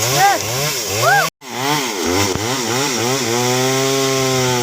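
Chainsaw engine revving up and down in quick blips, then held steady at high speed. The sound cuts out completely for a moment just over a second in.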